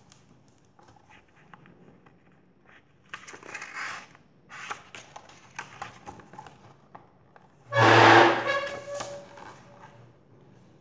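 Paper pages of a picture book rustling and flapping as a page is turned, with small handling clicks. About eight seconds in there is a short, louder sound with a brief pitched note.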